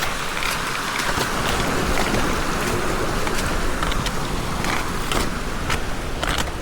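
Strong wind rushing and buffeting the microphone, with scattered sharp clicks through it.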